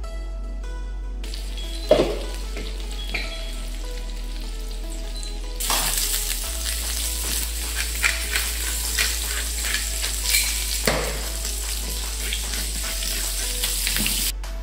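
Hamburg steak patties sizzling in a frying pan of hot fat and juices, with sharp crackles throughout. The sizzle turns much louder about a third of the way in. A sharp knock comes about two seconds in and another near eleven seconds.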